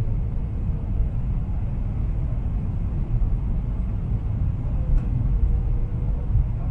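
Steady low rumble of a Boeing 777-300ER's cabin in flight: engine and airflow noise heard from a window seat over the wing.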